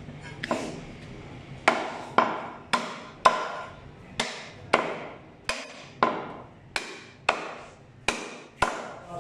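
Meat cleaver chopping bone-in mutton on a thick wooden chopping block. About a dozen sharp chops come roughly two a second, starting under two seconds in, and each rings briefly.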